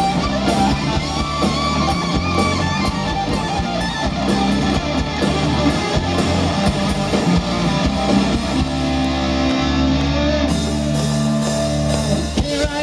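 A live hard-rock band playing loud with no vocals: distorted electric guitars over bass guitar and drum kit.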